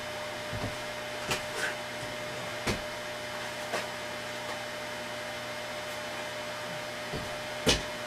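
A few short knocks and clatters of someone rummaging through parts out of sight, the loudest near the end, over a steady hiss and faint hum of room tone.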